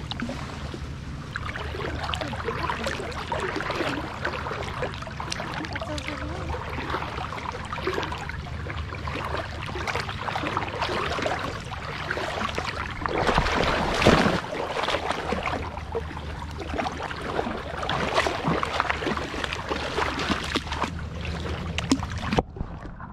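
Water sloshing and splashing around a golden retriever puppy as it wades through a shallow creek, heard close up, with a louder splash about two-thirds of the way through.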